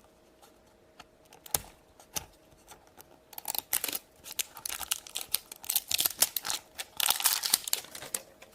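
A toy blind-bag wrapper is crinkled and torn open by hand. A few scattered light clicks and a sharper knock come first, then dense crinkling and tearing from about three seconds in almost to the end.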